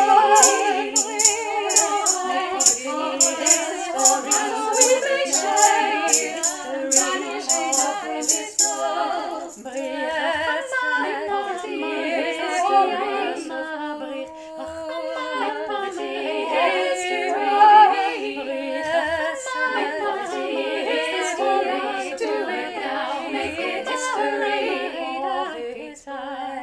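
A woman's voice multi-tracked into several parts, singing a cappella in harmony. A shaker keeps a steady beat for about the first nine seconds, then sounds only now and then.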